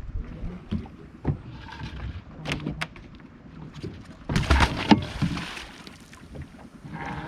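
Knocks and handling noises aboard a small fishing boat, with a louder rush and a heavy thud about four and a half seconds in.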